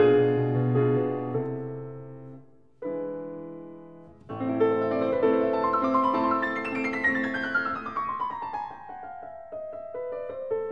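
Background piano music: held chords that fade almost away, a new chord about three seconds in and another a second and a half later, then a run of notes descending in pitch.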